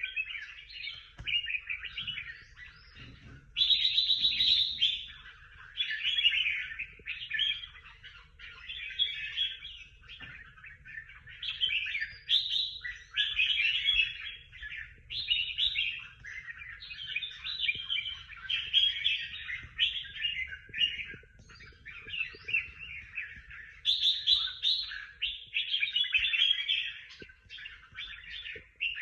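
Competition songbird singing a long, varied song in rapid phrases of a second or two, with short pauses between them.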